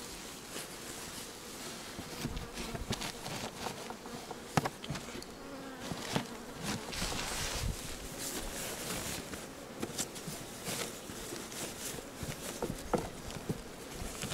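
Honeybees buzzing around an open beehive, with a few sharp knocks from the hive being handled, the loudest about four and a half seconds in.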